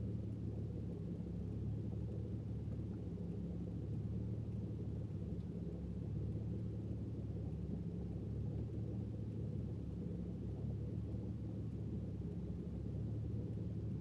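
Car engine idling steadily, heard from inside the cabin as a low, even hum.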